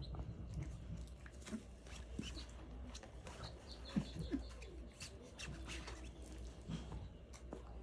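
Young Australian cattle dog puppies making small squeaks and whimpers, a few short ones around the middle, amid soft rustling and clicks.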